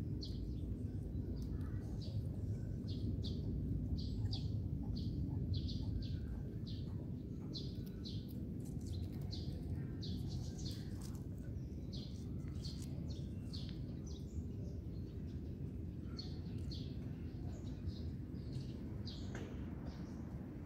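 Small birds chirping over and over, short high chirps about once or twice a second, over a steady low outdoor rumble.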